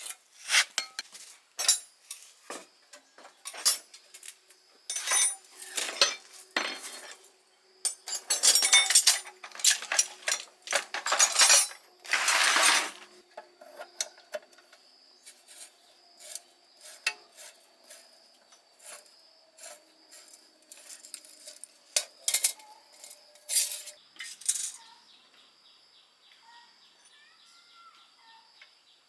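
Metal hand tools and parts clinking, knocking and scraping during work on a generator. The clatter is densest, with rasping scrapes, from about eight to thirteen seconds in, then thins to occasional light clinks.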